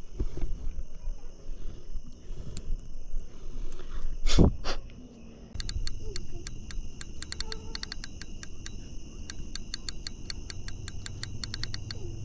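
Night insect chorus, crickets trilling steadily in high tones, with a loud knock about four seconds in and then a long run of rapid, irregular clicking from about halfway on.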